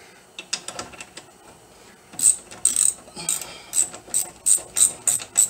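Ratchet clicking as it turns a 13 mm socket to loosen the bolts of a Corvette's front sway bar and shock mount plate. A few light clicks at first, then from about two seconds in, steady back-and-forth strokes of about three a second.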